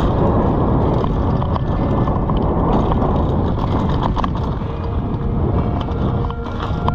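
Mountain bike rolling fast over a dirt trail: a steady wind rush on the microphone, broken by frequent rattles and knocks from the bike.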